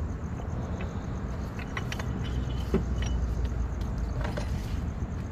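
Scattered light metallic clicks and clinks of hand tools and parts at the power steering pulley, over a steady low vehicle rumble.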